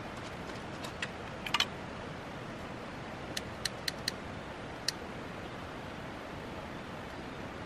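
Bialetti aluminium moka pot brewing on a portable gas burner: a steady hiss with a scattered handful of small ticks and pops as the coffee starts welling up out of the spout.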